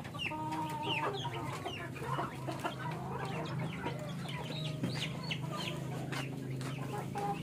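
Chickens clucking, with many short high chirping calls scattered throughout. A steady low hum runs underneath.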